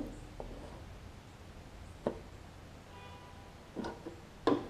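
Handling noise from fitting a carburetor and primer bulb onto a push mower's small engine: a few scattered light knocks and clicks of parts being worked into place.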